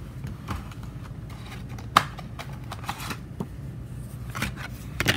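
Packaging being handled and rummaged through: scattered light clicks and rustles, with a sharper click about two seconds in.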